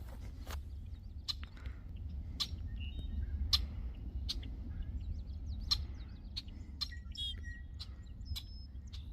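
Small songbirds chirping and twittering, with a short fluttering trill about seven seconds in. Sharp irregular clicks of footsteps on the trail run underneath, over a steady low rumble.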